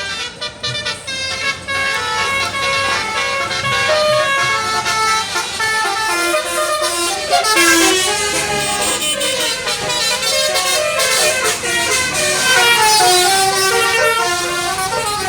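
Basuri telolet horns, electric multi-note vehicle horns, playing fast melodic tunes note by note. Several horn tunes overlap, as in a horn battle, and grow denser and louder about halfway through.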